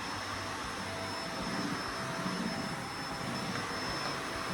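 Shark UV731 upright vacuum cleaner running steadily, a whooshing motor with a thin high whine. It is working again.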